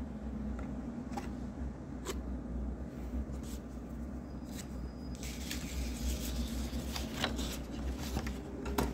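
A steady low hum with a few light clicks; about five seconds in, a denser rustling, crackling noise full of small clicks joins it.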